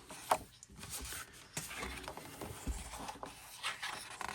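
Pages of a K-pop album photo book being turned and handled: soft paper rustles and light taps and clicks.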